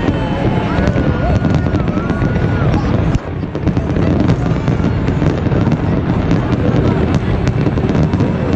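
Fireworks display going off in a dense barrage: a continuous deep rumble of booms with many sharp crackling bangs, and a brief lull about three seconds in.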